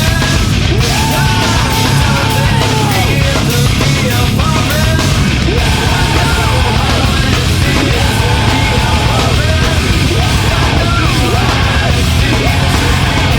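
Nu metal band recording playing loud and dense, with a strong bass end and a melodic line bending up and down over the top.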